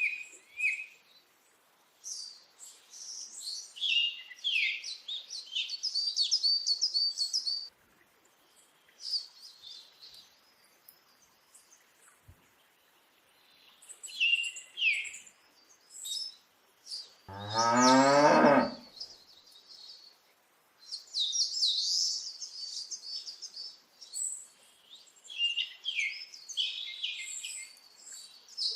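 Small birds chirping and twittering in repeated runs, with a single cow moo about seventeen seconds in, lasting about a second and a half.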